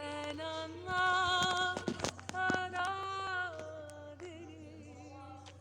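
Music with a woman singing a slow melody in long held notes with vibrato, with a few sharp percussive hits about two seconds in; it fades toward the end.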